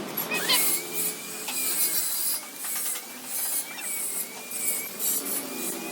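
Repeated rasping strokes, like a hand file worked back and forth, about one to two strokes a second, over a faint steady high tone.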